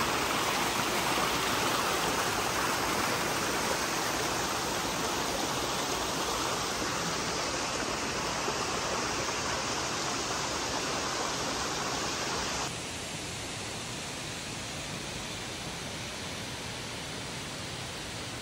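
Steady rush of falling water from a tall waterfall and its stream, an even hiss-like noise; about two-thirds of the way through it drops to a somewhat lower level at a cut and carries on steadily.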